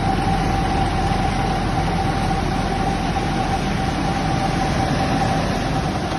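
Fan coil unit blower motor running with a loud steady drone and a constant hum. One of its blower wheels is badly out of balance, and the resulting vibration makes the loud noise.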